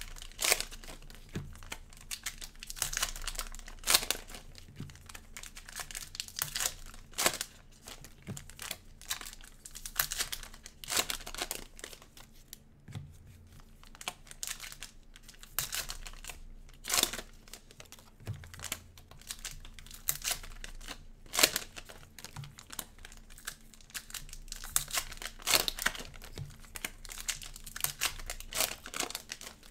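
Cellophane wrappers of trading-card cello packs crinkling and tearing as packs are ripped open and handled, in a steady run of irregular sharp crackles.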